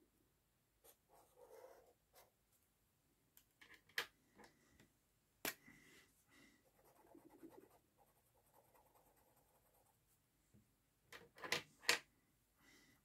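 Felt-tip pens scratching on sketchbook paper in short strokes as a small drawing is coloured in, with a few sharp clicks between strokes, the loudest near the end.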